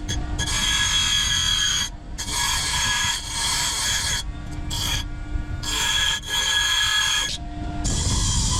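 A hand file rasping on iron in long, even strokes, about one every two seconds, with the metal ringing at a steady high pitch during each stroke.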